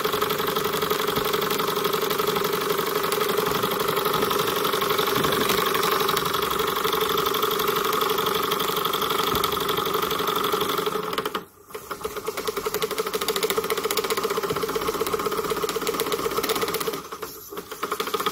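Small horizontal model steam mill engine running fast and smoothly on steam, with no banging, giving a rapid, steady beat of exhaust and working parts. The sound briefly drops away about eleven seconds in, and again near the end.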